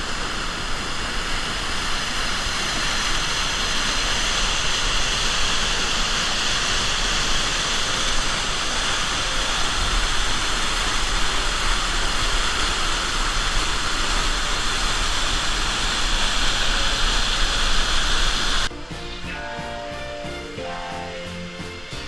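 Loud, steady rush of a waterfall close to the microphone, water pouring over rock. Near the end it cuts off suddenly and music takes over.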